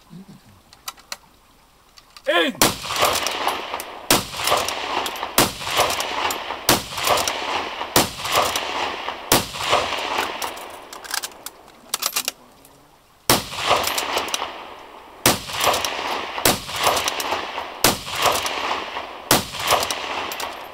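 Rifle shots from prone target shooters firing a rapid series: quiet for about two seconds, then a sharp shot roughly every second and a half, each with a ringing echo, a short break about halfway, then the shots resume.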